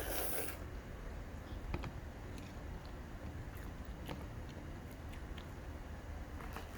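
A baby chewing and smacking on food: small, scattered mouth clicks, with a short burst of noise at the very start.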